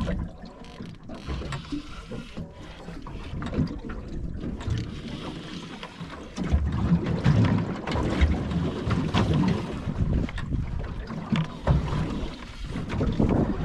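Wind buffeting the microphone and water moving around a small boat on the open sea, with scattered knocks and taps, louder after about six seconds.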